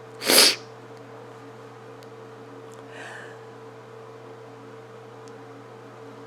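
A short breathy hiss about half a second in, then a steady low hum with a fainter higher tone over quiet room tone.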